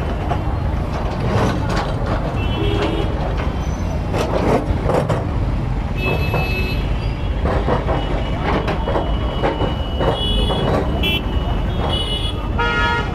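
Heavy road traffic: a steady engine rumble with a long horn note about halfway through and several more honks near the end, and scattered voices in the crowd.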